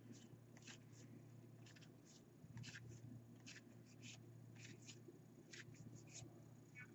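Near silence: faint, short swishes of baseball trading cards being slid one behind another as a pack is flipped through, a dozen or so scattered strokes over a low steady hum.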